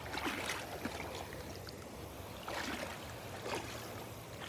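Small waves lapping along a rocky shoreline, with a few faint scuffs and knocks scattered through.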